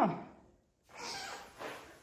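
A man's short 'huh' of surprise, falling in pitch, then about a second of soft hissing noise.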